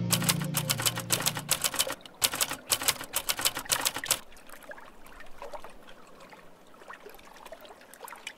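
Typewriter keys clacking in a quick run of strokes as a sound effect for a title being typed out, stopping a little over four seconds in. After that only faint ambient hiss remains.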